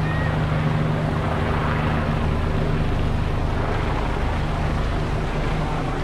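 Steady low hum of a running engine, even throughout, over the general rumble of city traffic.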